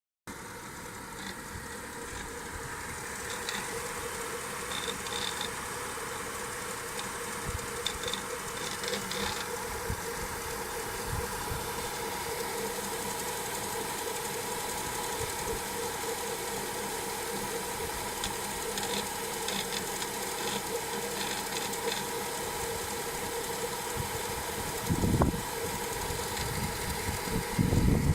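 BMW N55 turbocharged inline-six engine idling, with an extraneous knock from under the valve cover around cylinders 5–6 and scattered short ticks. The noise has not been cured by a replaced timing chain, guide and tensioner, and it comes alongside recurring VANOS camshaft-adjustment fault codes. Two dull thumps are heard near the end.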